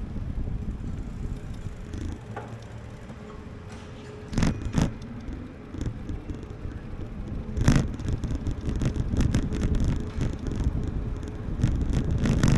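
Low, steady road-traffic rumble on a city street. There are a few sharp knocks about four and a half and seven and a half seconds in, then a run of quick clicks and rattles near the end.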